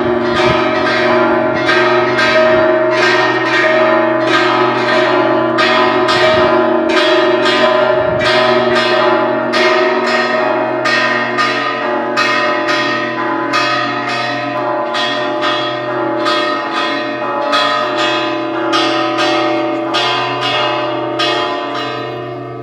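Church bells ringing a peal: a rapid, even series of strikes, nearly two a second, over the sustained hum of the larger bells. The ringing dies away near the end.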